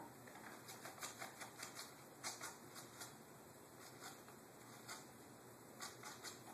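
Faint, irregular scratches and clicks from a cat's claws on a sisal-wrapped cat climbing pole and its wooden platform as the cat shifts and turns around. The clicks come thickest in the first few seconds and again in two short clusters near the end.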